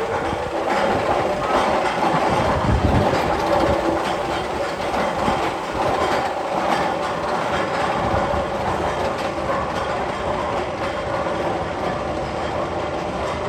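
Steel roller coaster train rolling on its track with a steady rumbling clatter, loudest in the first few seconds, with a faint steady tone running under it.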